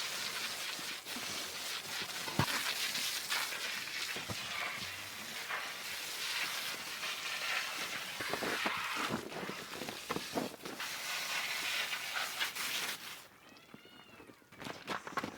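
Water hose spraying a steady hiss, washing manure off a Jersey cow's side, with a few knocks, then shutting off suddenly near the end. A few short high-pitched calls follow.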